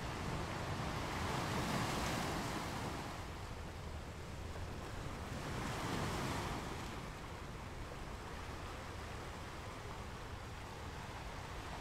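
Recorded surf of waves crashing on a rocky beach: two swells of breaking surf, the first about two seconds in and the second about six seconds in, with a steady wash between and after them.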